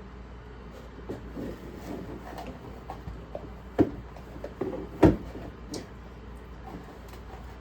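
Kitchen handling sounds as sourdough is stretched and pressed into a metal loaf pan: soft rustling and shuffling with a few short knocks, the two loudest about four and five seconds in.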